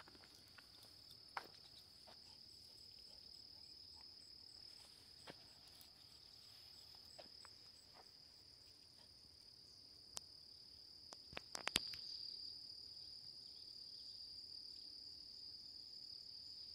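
Steady high-pitched trilling of crickets and other field insects. A few faint scattered clicks, and a short cluster of sharp clicks about twelve seconds in.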